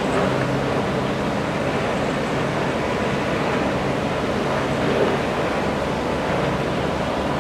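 Steady drone of diesel engines and colliery machinery running, an even noise with a level low hum underneath.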